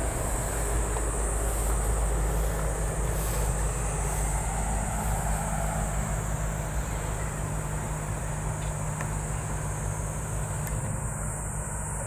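Wind rumbling on the microphone over a steady, high-pitched drone of insects in the paddy-side grass.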